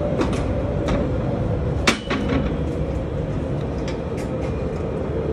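Construction hoist climbing the scaffolding: a steady motor rumble with a held whine, and light rattles and knocks from the car. One sharp metallic clank comes about two seconds in.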